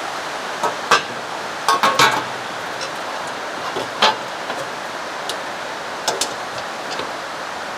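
Scattered light clicks and knocks from a kei truck's front bumper and its bolts being handled as the bumper is refitted, over a steady background hiss.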